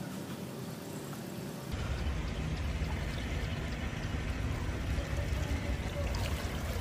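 Pond water sloshing and dripping as a man standing in it hauls a wet fishing net up out of the water. A steady low rumble starts about two seconds in.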